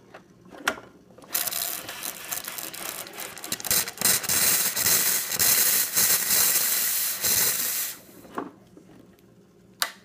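Rancilio Miss Nancy espresso machine's steam wand hissing loudly and unevenly for about six and a half seconds. Three short clicks, one before the hiss and two after it.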